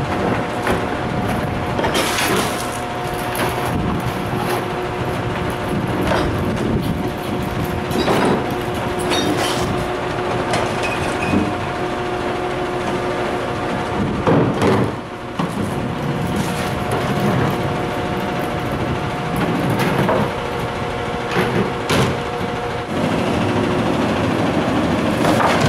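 McNeilus front-loader garbage truck idling steadily with a constant hum, while plastic trash cans are tipped into a steel commercial bin, giving about six sharp bangs and clatters as the cans knock against the bin's rim and the trash drops in.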